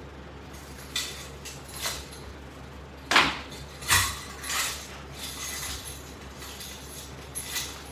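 Someone doing sit-ups: about seven short, irregular bursts of breath and body movement, with light clinks of the strap system's metal hardware.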